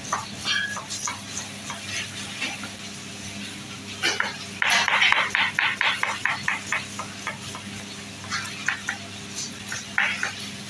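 Kitchen knife slicing onions on a plastic cutting board: a run of quick cutting strokes, loudest and fastest about five seconds in, over a faint steady hum.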